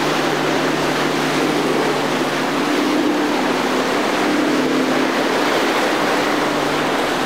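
Boat engines droning steadily under a constant rush of waves and moving water.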